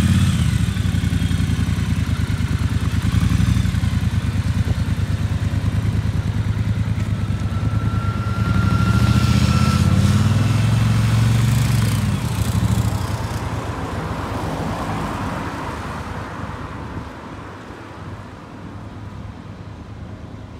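Triumph Bobber's 1200 cc parallel-twin engine running close by, then revving as the bike pulls away about eight seconds in. The engine fades over the last several seconds as it rides off down the road.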